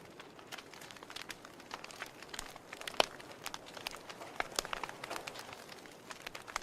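Wood fire in a fireplace crackling: irregular sharp pops and snaps from the burning logs over a soft steady hiss, with one louder pop about three seconds in.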